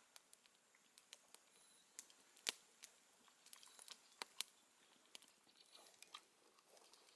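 A dog eating a breakfast of dried meat treats and kibble: faint, irregular crunching and chewing clicks, with a few sharper crunches about two and a half and four seconds in.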